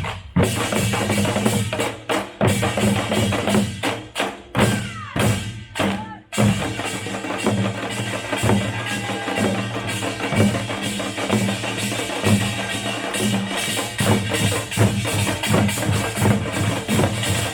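Korean pungmul folk percussion band playing drums: scattered separate strikes at first, then from about six seconds in, dense, continuous drumming with a pulsing low beat under a constant bright clatter.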